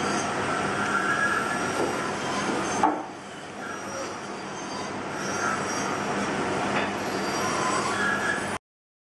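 Carving knife shaving a pine Dala horse blank by hand: steady scraping cuts with recurring high squeaks as the blade bites the wood. A sharp knock a little under three seconds in, and the sound cuts off abruptly near the end.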